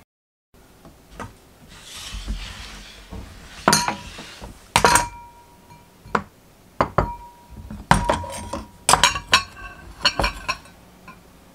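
Glass mixing bowls clinking and knocking on a wooden cutting board as peeled onion pieces are handled. A soft rustle comes first, then a series of sharp knocks and clinks, several leaving a short ringing tone.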